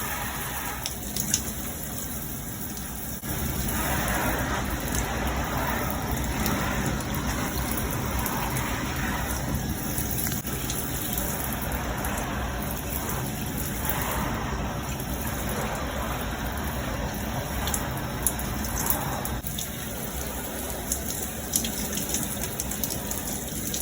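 Water running and splashing steadily, a little louder from about three seconds in.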